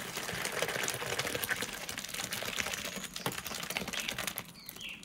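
Hot cooked cherries and syrup sliding and splattering out of a large aluminium basin into an enamel bowl as a metal skimmer pushes them along: a dense run of small wet splats and clicks.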